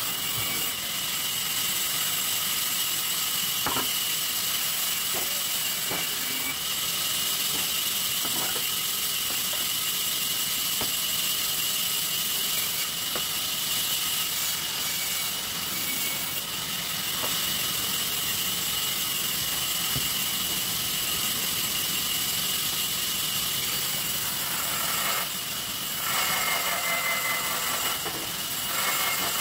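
Sawmill table saw running steadily with a high whine, its blade cutting shisham wood to take off the pale sapwood. A few short knocks come in the first half, and a clearer singing tone rises near the end.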